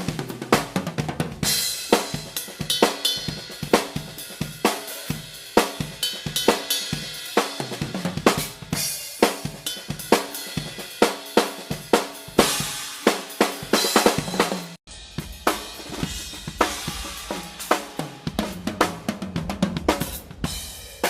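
Drum kit being played, with snare, bass drum, hi-hat and cymbal strokes in a dense groove. The playing cuts off suddenly for an instant about two-thirds of the way through, then goes on with a fuller, steadier low end.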